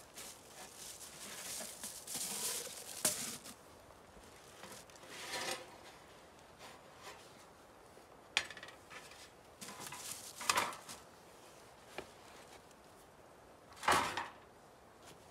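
Sheet-metal stove parts and a metal chimney pipe being unpacked from a fabric backpack: rustling of the pack, then scattered metallic clanks and knocks, the loudest near the end.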